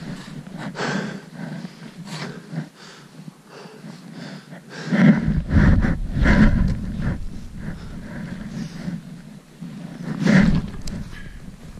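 A hiker breathing hard while walking through snow, in uneven puffs, with louder low rumbles on the microphone about five seconds in and again about ten seconds in.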